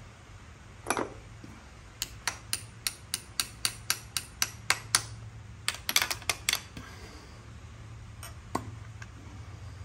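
Ratchet wrench clicking in a steady run of sharp metallic clicks, about three a second, then a brief quicker flurry, as the bolts of a dirt bike's oil filter cover are backed out.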